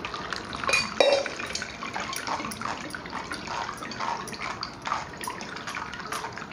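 Blended watermelon juice being strained: poured into a steel mesh strainer, then a spoon scraping and pressing the pulp against the mesh while juice trickles into the bowl below, in many small irregular scrapes.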